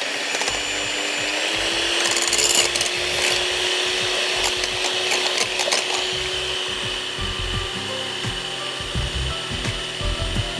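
Electric hand mixer beating eggs in a glass bowl: a steady motor whine that rises a little in pitch about a second in as it speeds up, with scattered clicks of the beaters against the glass.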